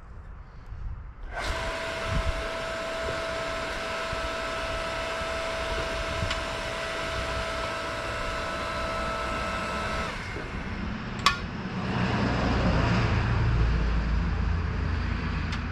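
Earthquake W500 electric log splitter's motor and hydraulic pump start about a second in and run steadily with a whine. About ten seconds in the whine stops and the sound turns to a lower, heavier hum, with one sharp click just after.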